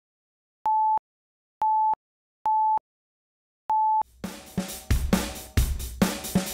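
Film-leader countdown beeps: four short, steady beeps of one pitch, roughly a second apart, with silence between. About four seconds in, music with a drum kit begins with a steady beat.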